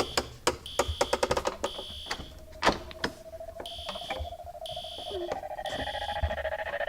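Fire alarm beeping, a high tone about once a second, each beep a little over half a second long, with one longer gap near the middle. Quick sharp clicks come thick in the first few seconds, and a steady lower tone comes in about halfway.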